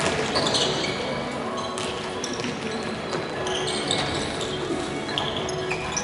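Futsal play on a wooden sports-hall floor: scattered short high-pitched squeaks of indoor shoes and a few thuds of the ball being kicked, echoing in the large hall.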